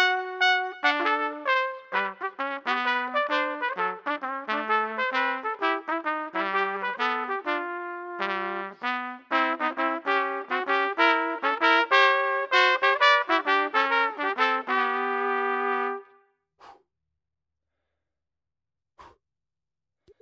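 Two trumpets playing a swing jazz duet in two parts, mostly short detached notes, ending on a long held chord that cuts off about three-quarters of the way through. After that, near silence with a few faint soft clicks.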